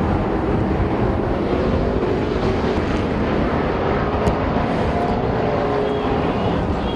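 A pack of street stock race cars running flat out around a short oval. Several engine notes overlap and waver in pitch over a steady roar.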